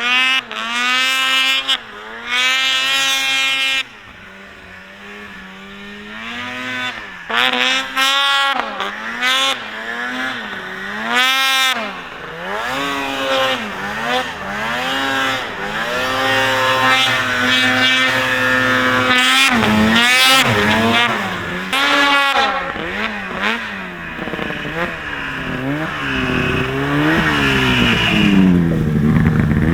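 Ski-Doo Rev snowmobile's freshly rebuilt 800 H.O. two-stroke engine revving up and down again and again as the sled is ridden, its pitch rising and falling every second or so. It grows louder in the last few seconds.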